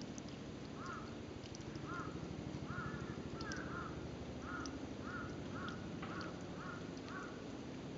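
A crow cawing: a series of about ten short calls, starting about a second in and repeating roughly every half second to second. A steady low background noise sits beneath it.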